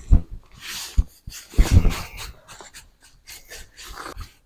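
Irregular knocks and scraping rustles of fishing tackle being handled close by at an angler's seat box. The loudest thumps come near the start and around the middle, and quieter rubbing follows.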